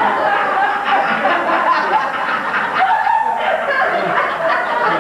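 A roomful of people laughing together, many voices overlapping.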